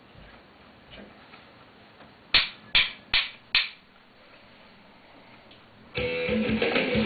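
Four sharp clicks, evenly spaced about 0.4 s apart like a count-in, then a couple of seconds of quiet. Near the end, loud strummed guitar music starts.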